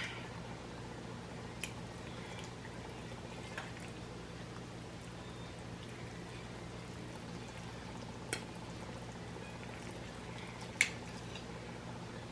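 Low steady hum with four faint, short clicks spread through it, the sharpest a little before the end.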